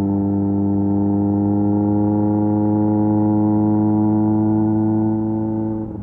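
Kawasaki Z900's 948cc inline-four running through an SC Project exhaust, pulling steadily with the pitch creeping up under gentle acceleration. Right at the end the throttle closes and the note drops and fades briefly.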